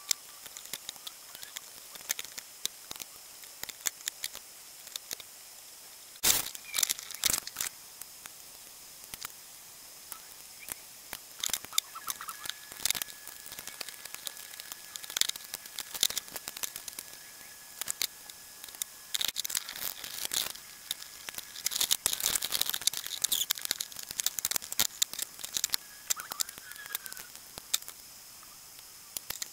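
Scattered clicks, taps and clatter of hand tools and small metal parts handled on a wooden workbench while a clothes iron is taken apart for scrap. The handling is sparse at first and gets busier in the second half.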